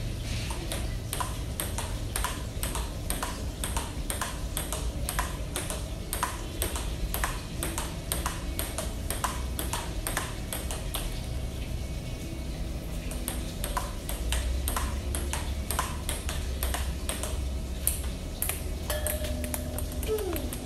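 Table tennis ball clicking off the bats and the table in a forehand practice rally, about two hits a second. It breaks off for a moment about halfway through, then picks up again. A low steady rumble runs underneath.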